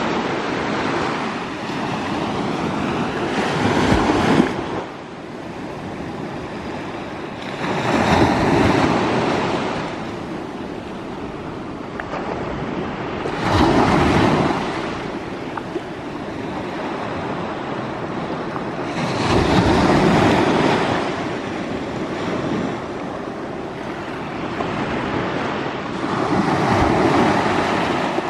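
Small Baltic Sea waves breaking and washing up the shore, five swells of surf a few seconds apart, with a steady wash between them.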